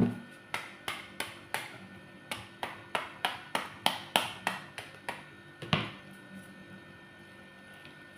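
A metal rod beating the back of a halved pomegranate held cut-side down, about sixteen sharp smacks at roughly three a second, knocking the seeds out into a bowl. The strokes stop about six seconds in, with one last harder smack.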